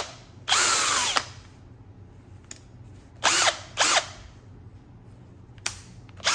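Bosch 18-volt brushless cordless drill run briefly by its trigger, no load: one burst of under a second, then two short blips a few seconds later, the pitch dropping as the motor winds down each time.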